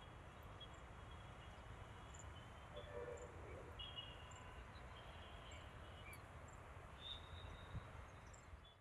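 Faint, short high bird chirps, a few scattered notes with one clearer chirp about seven seconds in, over a steady low background rumble.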